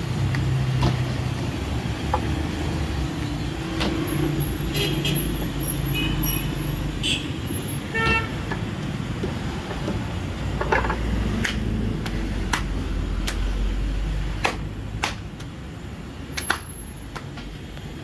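Busy roadside street noise: vehicle engines running with the steady rumble of traffic, and horns tooting several times in the first half. A series of sharp knocks comes in the second half.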